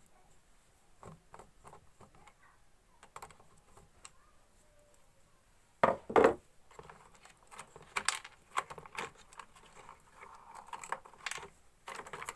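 Clicks, knocks and rattles of hand tools and plastic speaker parts being handled while the circuit board is worked loose from a Bluetooth speaker's casing, with two loud knocks about six seconds in.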